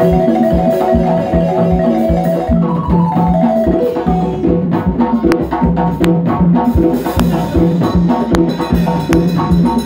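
Live West African music: a balafon plays quick runs of short wooden notes over a steady beat of hand drums.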